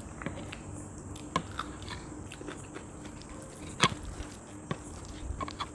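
Eating by hand: fingers mashing and mixing soft boiled rice on plates, with chewing, lip smacks and a few small clicks. The sharpest click comes about four seconds in.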